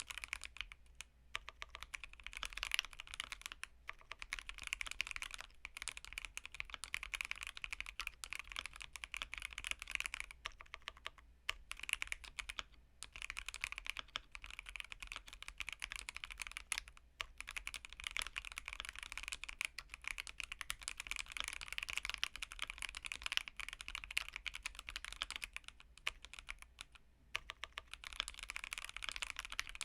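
Continuous fast typing on a Keychron Q1 mechanical keyboard fitted with Aqua King switches, a polycarbonate plate and an aftermarket tuning kit: a dense stream of keystroke clacks with a few short pauses between bursts.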